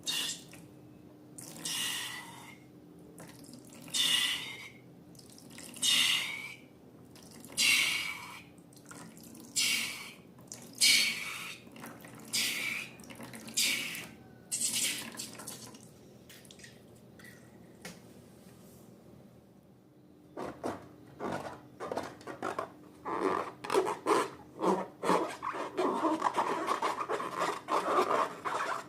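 Slime-making liquids: a series of short wet squirts or pours, one every second or two, for the first half. After a short lull come quick, sticky squelches and crackles of slime being mixed.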